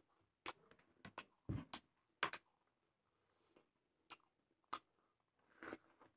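Faint wet chewing and lip-smacking of a mouthful of rice: a string of short smacks and clicks, most of them in the first couple of seconds and a few more spaced out after.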